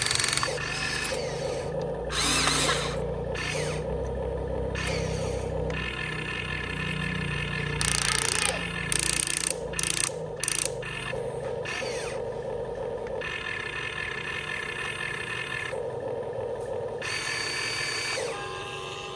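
Huina 1592 RC excavator's electric motors and gears whirring in short stop-start runs as the boom, arm and bucket move through a dig. It has several louder, higher bursts of whine.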